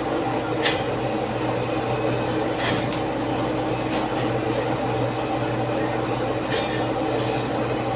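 A steady mechanical hum, with a few sharp knocks or clicks: one under a second in, one near three seconds and a pair near seven seconds.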